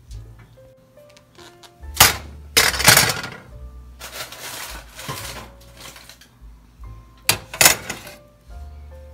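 Glass baking dishes knocking and clinking as they are handled with an oven mitt and set down on a foil-covered stovetop. The loudest clatter comes about two seconds in and again about seven seconds in, over light background music.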